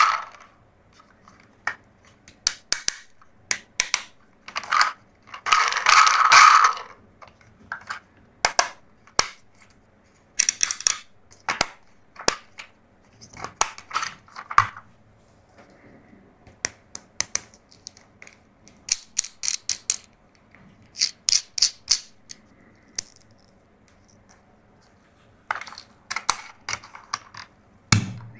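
Plastic toys being handled: irregular clicks, taps and light rattles, with a couple of longer, louder scraping bursts, one about five seconds in and one near the end.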